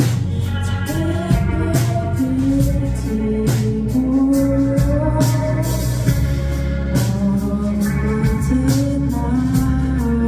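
Live band playing a song, with drum hits throughout under a sung or played melody.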